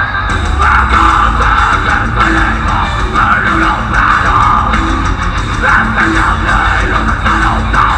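Metalcore band playing live and loud: distorted electric guitars, bass and drum kit through a concert PA.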